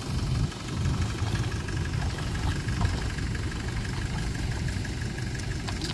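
Toyota Hilux pickup engine idling steadily.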